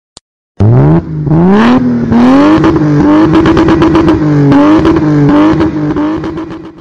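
Engine revving hard: its pitch climbs steeply from about half a second in, then stays high with several dips and climbs, until it fades out at the end.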